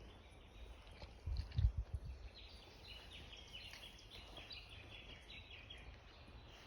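Small birds chirping, a quick run of high notes lasting a few seconds, over a faint forest background hiss. A few low thumps come just over a second in.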